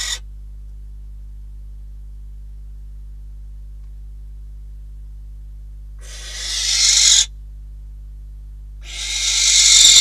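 Barn owl giving harsh, hissing screech calls, each about a second long, swelling in loudness and cutting off sharply: the end of one at the start, then two more about six and nine seconds in. A steady low electrical hum runs underneath.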